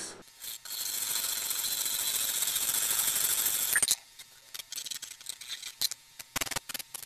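A steady high hiss that cuts off abruptly at about four seconds in, followed by light metallic clicks and rattles of hand tools and a bench vise being handled on a workbench.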